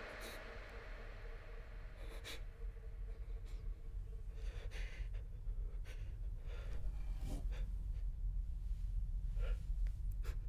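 A young man's soft, shaky breaths and sniffs while crying, a few short ones scattered through, over a low steady hum that slowly grows louder.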